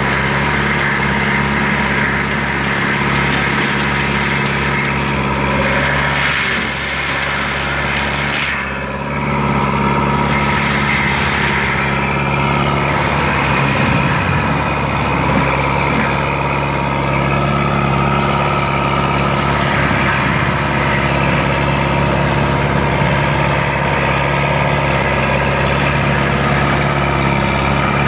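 Lamtrac LTR6125 forestry mulcher's diesel engine and Denis Cimaf mulching head running steadily. The sound dips briefly twice, about seven and nine seconds in.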